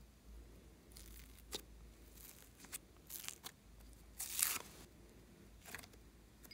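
Soft foam clay crackling and tearing in short, scattered bursts as fingers press it and peel it off its round holder, loudest about four seconds in.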